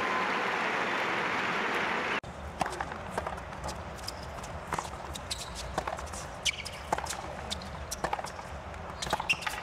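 Steady crowd noise cuts off abruptly about two seconds in. A hard-court tennis rally follows: sharp strikes of racket on ball and the squeak of players' shoes on the court.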